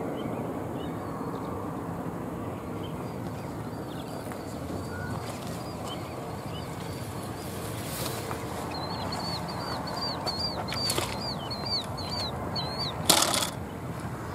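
A songbird singing a quick run of short, slurred, high notes, building in the second half, over a steady background hiss. A sudden short loud noise comes near the end.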